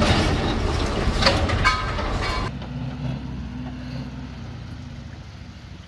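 Loud, noisy heavy-vehicle sound that cuts off abruptly about two and a half seconds in, giving way to a quieter low rumble that fades.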